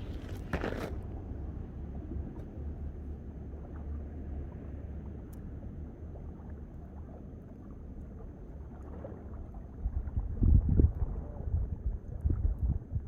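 Small waves lapping at the lakeshore, with low wind noise on the microphone that gusts louder near the end.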